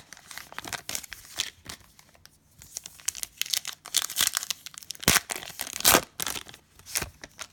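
Crinkling and tearing of a plastic trading-card pack wrapper being ripped open and handled, in short irregular rips and crackles.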